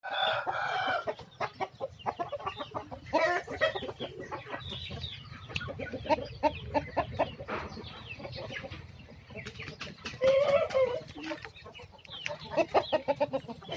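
Chickens clucking: a run of short, quick clucks with a few longer drawn-out calls, one at the start and another about ten seconds in.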